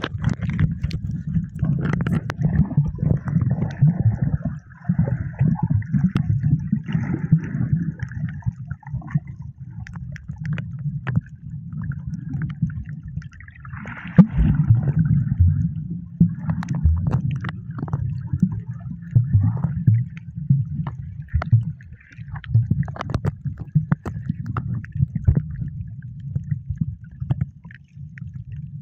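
Muffled water sounds of snorkeling: a dense low sloshing and gurgling, with frequent small clicks and knocks.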